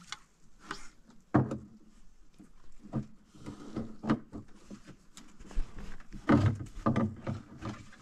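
A series of irregular knocks and thuds, the loudest about a second and a half in and a cluster of several more from about six to seven seconds in.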